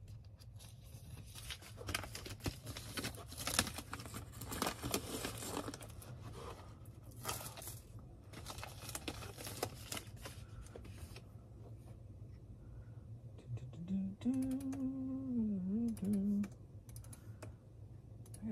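Typing on a computer keyboard: a quick run of key clicks for about ten seconds, then only a few scattered clicks. Later a man hums briefly on one note that dips and comes back, for about two seconds.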